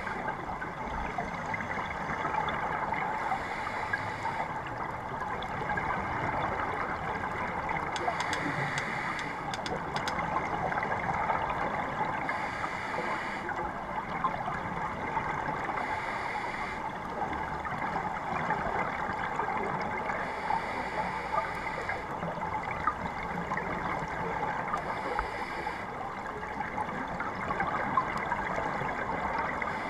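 Scuba regulator breathing heard through a GoPro's underwater housing: a steady muffled rush of water, with a hissing, bubbling breath that comes back about every four seconds.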